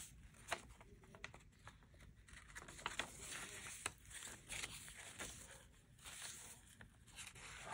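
Paper pages of a handmade junk journal being turned and lifted by hand: faint rustling with soft papery flicks scattered through.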